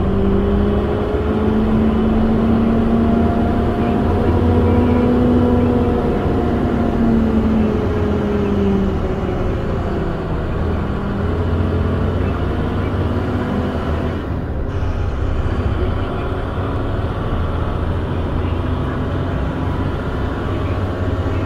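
Peterbilt semi truck's diesel engine running steadily with a low rumble, its pitch rising slowly and then easing off a few seconds later, again and again as engine speed changes.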